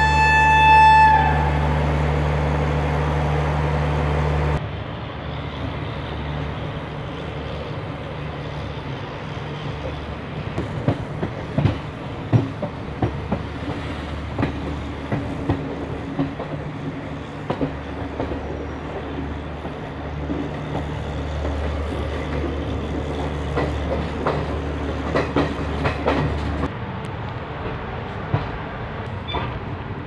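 A train horn sounds one long steady note that cuts off about a second in. Then the ICF coach's wheels rumble and clatter over rail joints and points as the train pulls out of the station and gathers speed, heard through the open coach door, with sharp clacks coming thick and fast in the middle of the stretch.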